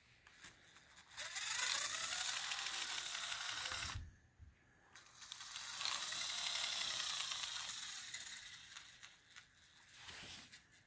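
Plastic gears of a Lego Technic truck's drivetrain whirring with a rapid clicking. It comes in two runs of a few seconds each, and in each the pitch climbs and then falls away.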